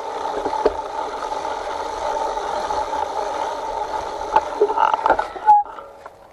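A bike rolling along a leaf-covered dirt trail: steady tyre and drivetrain rattle with knocks over bumps, a short squeak about five and a half seconds in, and then the riding noise stops.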